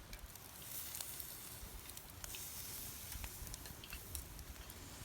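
Small wood campfire crackling, with scattered sharp pops and a soft hiss.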